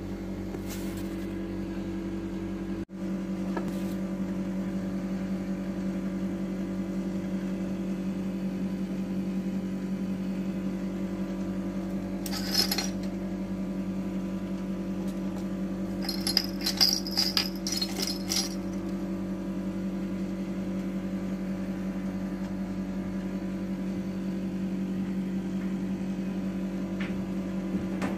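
A steady, even hum from a motor or appliance runs throughout. About halfway through, and again a few seconds later, small metal fishing tackle, clip-on rod bells, hooks and sinkers, clinks and jingles briefly.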